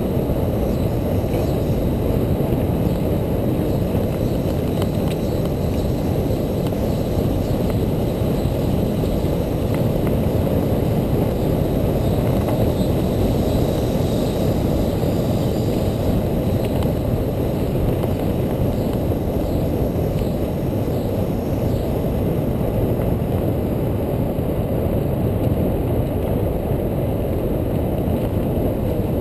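Bicycle riding fast down a dirt trail: a steady low rumble of tyres on the dirt and wind on the microphone, with a few small knocks from bumps.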